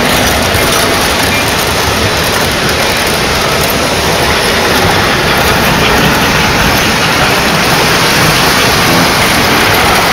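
O-gauge model train, a diesel locomotive pulling freight cars, running fast right past on three-rail track: a loud, steady rumble of wheels on the rails.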